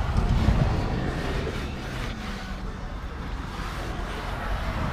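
A microfiber towel rubbing along a truck's plastic door sill, under a low rumble that is loudest in the first second.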